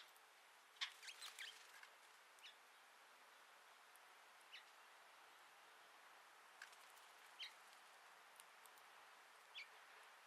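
Faint short chirps of small birds: a quick run of several chirps about a second in, then single chirps every second or two, over a quiet background hiss.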